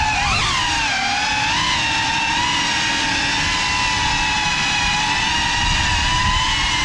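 Brushless motors and ducted propellers of a GEPRC Cinelog 35 cinewhoop FPV drone whining in flight, as picked up by its onboard GoPro. The pitch rises and falls with the throttle just after the start and again about a second and a half in, then holds nearly steady.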